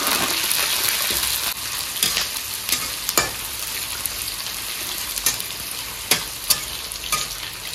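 Sliced onions and whole spices sizzling steadily in hot mustard oil in a metal kadai, with a metal spatula scraping and knocking against the pan now and then as they are stirred.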